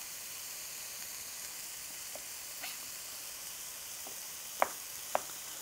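Chicken pieces frying in a pan, sizzling with a steady hiss. Two short knife clicks on a cutting board come near the end as a tomato is sliced.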